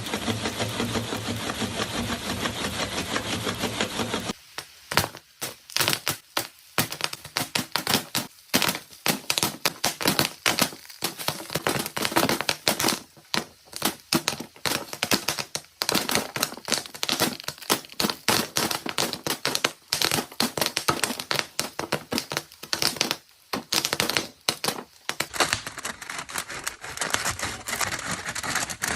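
Popcorn kernels popping in a hot pan: a sizzling hiss for the first few seconds, then a dense, irregular run of sharp pops and cracks, with the hiss coming back under them near the end.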